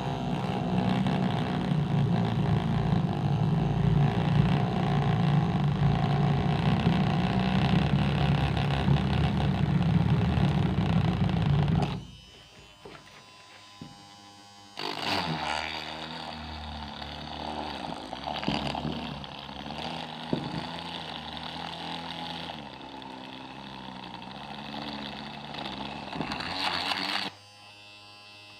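Small electric motor of a homemade mini drill running steadily for about twelve seconds, then switching off. After a short pause it runs again more quietly, its pitch wavering, and stops near the end.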